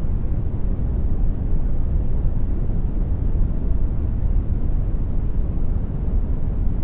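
Generated brown noise: a steady, deep rushing hiss, loudest in the bass and thinning out toward the treble, with no changes.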